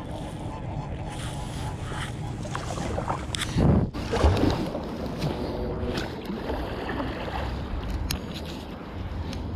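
Kayak paddling on a river: water splashing and sloshing around the boat with a steady low rumble, a louder bump about four seconds in, and a few sharp clicks later.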